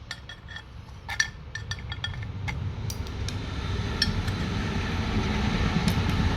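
Metal clinking and light knocks as the last loose piece is worked out of a scrapped water meter, a handful of short ringing strikes, the loudest about a second in. A low rumble rises underneath from about halfway.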